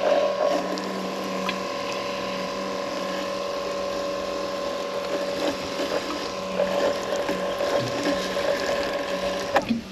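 EcoFlow Blade robotic lawn mower's electric motors running with a steady whine, with faint clicks, cutting off abruptly near the end.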